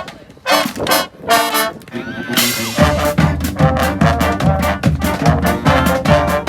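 Street brass band playing: short brass phrases with gaps between them, then a crash about two and a half seconds in as the whole band comes in with a full, steady beat.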